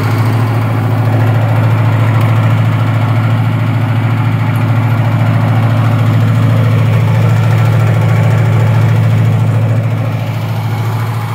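Massey Ferguson 40 tractor's gasoline engine idling steadily; it gets a little quieter near the end.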